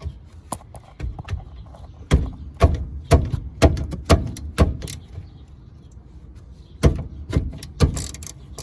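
Sharp knocks on the rusted rear brake hardware, about two a second: a run of six, a pause, then three more.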